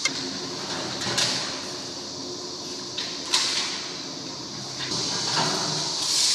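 Building work: a steady high hiss with sharp scrapes and knocks at several points.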